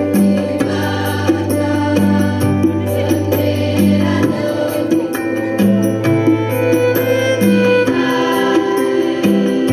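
Large student choir singing an Indonesian patriotic song in unison, with an amplified electronic keyboard accompaniment that holds a steady bass line under a regular beat.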